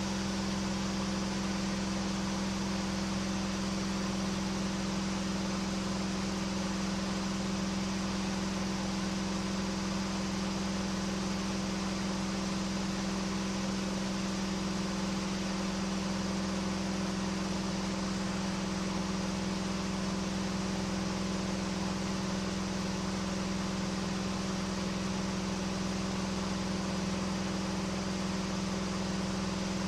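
Cockpit drone of a KR2 homebuilt light airplane's piston engine and propeller in steady cruise: one strong, unchanging hum with a hiss of rushing air over it.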